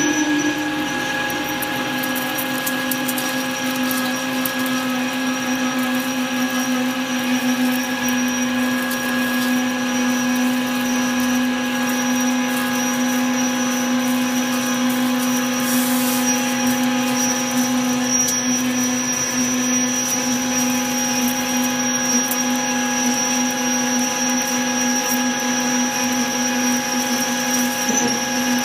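Manual lathe running while a tailstock-mounted carbide form tool cuts an RTJ ring groove into Inconel: a steady whine of several constant tones over a hiss of cutting noise, with no change in speed.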